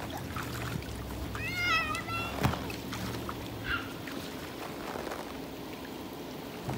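A young child's high-pitched, wavering squeal lasting under a second, about a second and a half in, followed by a single sharp knock and, a second later, a brief faint cry.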